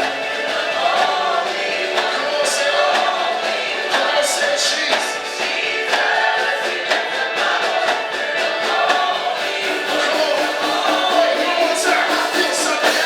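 A choir singing, with many voices in harmony.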